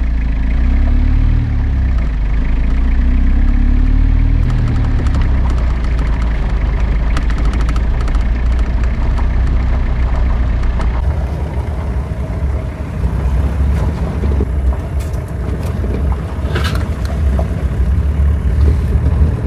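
A 4x4 camper driving on a gravel road: a steady low engine and road rumble. The engine note rises and falls twice in the first few seconds, with scattered light clicks through the middle.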